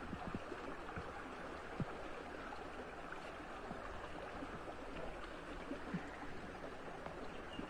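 Shallow rocky stream running over stones, a soft, even water sound, with a few faint low knocks.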